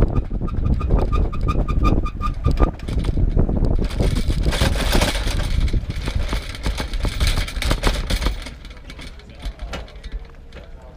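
Bicycle ride recorded from a camera clamped to the bike's front basket: wind buffeting the microphone and the basket rattling over the pavement. A rapid high chirp repeats about five times a second for the first two to three seconds. It all gets quieter near the end, where faint voices come in.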